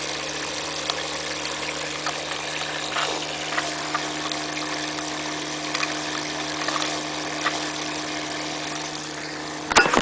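Alphacool 1510 pump running at 24 volts with a steady hum, driving green coolant hard through a polycarbonate waterfall reservoir so that it churns and rushes inside. Faint ticks come now and then, and there is a sharp clatter just before the end.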